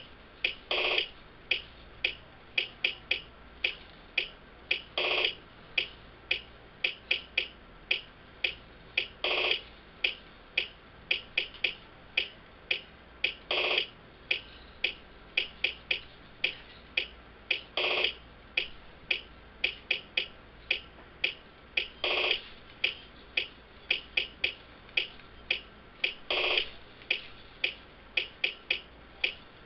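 Finger cymbals (zills) played in a steady rhythm: short clacks about two or three a second, with a longer ringing strike about every four seconds.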